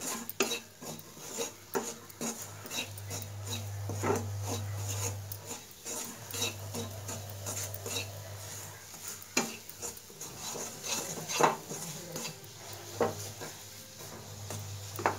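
A flat wooden spatula scrapes and knocks irregularly against a steel pan, stirring grated coconut with country sugar as the sugar is mixed in and cooks.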